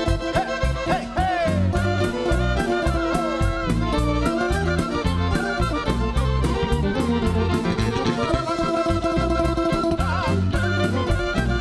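Balkan folk band playing an instrumental break: accordion, violin and clarinet carrying the melody over bass, keyboard and a steady drum beat.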